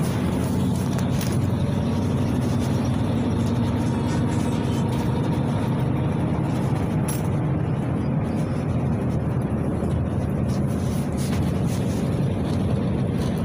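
PAZ-32054 bus heard from inside the passenger cabin while driving: a steady low engine drone mixed with road noise, with occasional light clicks.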